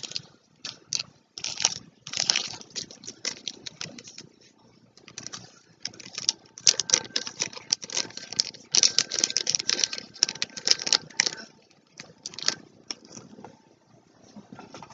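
Plastic packaging being crinkled and handled: dense runs of small crackling clicks, busiest about two seconds in and again from about six to eleven seconds in, sparser in between.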